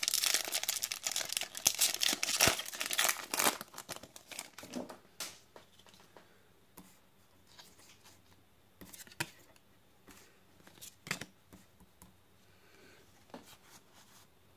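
Foil Pokémon booster pack wrapper being torn open and crinkled for about the first four seconds. After that come a few light, scattered clicks as the cards inside are handled.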